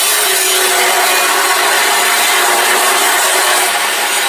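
A steady, loud rasping hiss with faint tones mixed in, holding an even level throughout.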